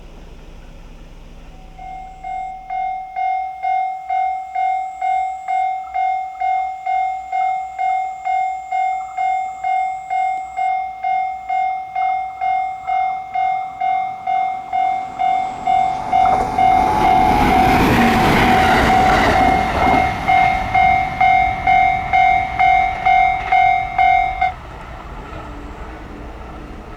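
Japanese level crossing's electronic warning bell, a pulsing tone at about two strikes a second, starts about two seconds in. Midway a train passes through the crossing, a loud rush lasting a few seconds. The bell stops a few seconds after the train has gone.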